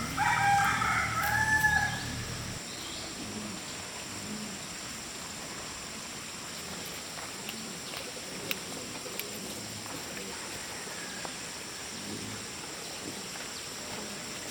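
A rooster crows once, a call of about two seconds at the start. After it there is only a faint background with a few small clicks.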